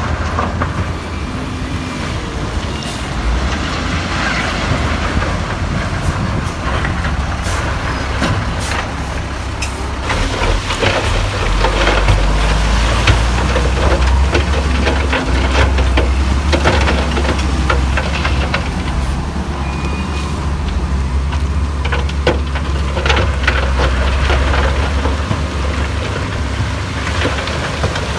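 Heavy diesel earthmoving machinery running under load: a steady low engine rumble with scattered metal clanks and knocks, growing a little louder about halfway through.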